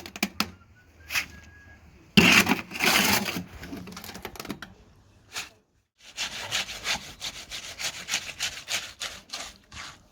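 Rhythmic scraping strokes from a hand tool working a rough surface. A short heavy burst comes about two seconds in, then after a pause a steady run of quick strokes, several a second, that stops just before the end.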